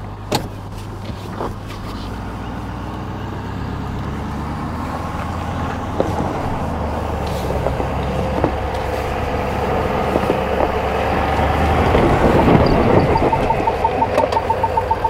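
Ford F-350 Super Duty dually's 6.7 L Power Stroke V8 diesel pulling in four-low up a loose dirt and rock slope, growing louder as it works harder, with occasional knocks from underneath. Near the end a rapid electronic beeping from the truck starts up over the engine.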